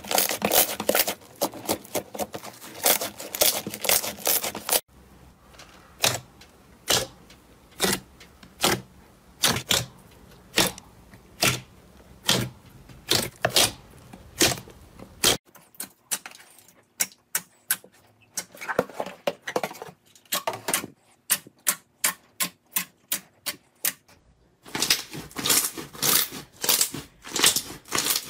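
Slime being pressed and poked, giving runs of sharp clicks and pops. The sound changes abruptly about 5, 15 and 25 seconds in, as one clip gives way to the next.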